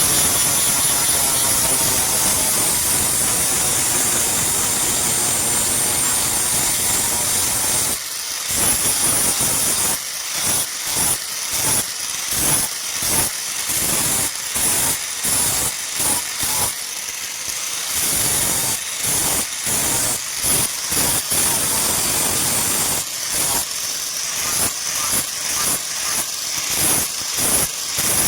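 A motor-driven power tool running steadily with a strong hiss, then about eight seconds in its sound breaks into quick repeated strokes, typical of steel being worked against it in passes.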